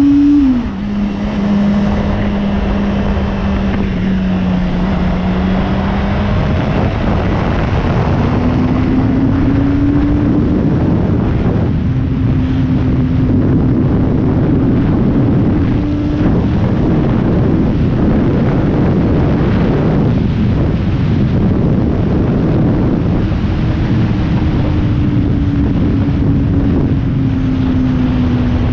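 Sport motorcycle engine heard from onboard at a steady road pace under heavy wind noise. Its note drops sharply about half a second in, as after an upshift, climbs again from about eight to eleven seconds, then holds and sinks slowly near the end.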